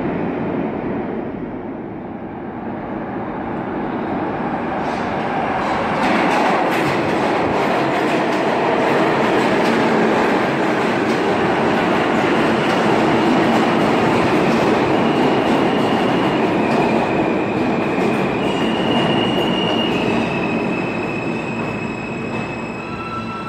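New York City Subway R160A-1 train pulling into an underground station: the rumble and rattle of its wheels on the rails builds up and stays loud as the cars run in. In the second half a high electric whine from its motors sets in, shifting pitch in steps as the train brakes.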